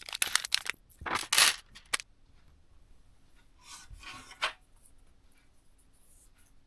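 Small hard parts being handled during a PC build: a quick run of clicks, clinks and rustling in the first two seconds, then a scrape and one sharp click about four and a half seconds in.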